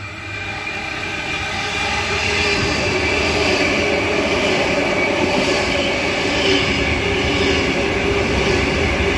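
Sydney Tangara electric train passing through the platform at speed without stopping. It builds over the first couple of seconds to a loud, steady rush of wheels on rail, with a steady whine running through it.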